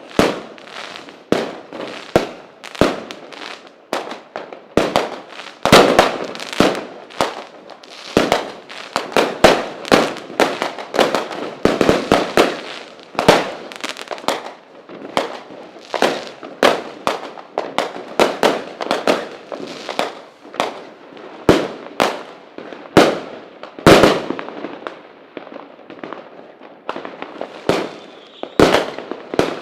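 Fireworks going off: a long irregular barrage of sharp bangs and pops, several a second at times, over steady crackling.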